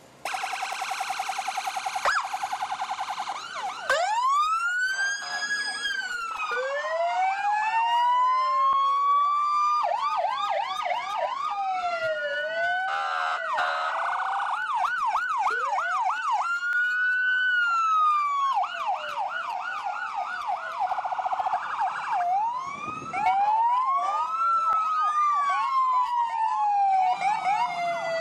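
Several American police-car electronic sirens sound at once as the cars drive past, with slow rising-and-falling wails overlapping fast yelp sweeps. A steady buzzing horn tone sounds for the first few seconds.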